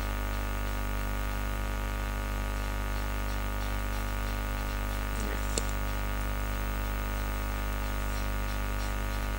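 Steady electrical mains hum with a buzz of many overtones, picked up by the recording microphone's chain. A single faint click about five and a half seconds in.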